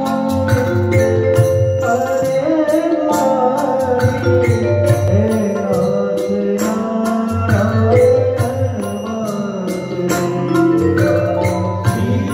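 Live Gujarati devotional dhun: a man singing into a microphone over a PA, with tabla strokes and steady held accompanying notes.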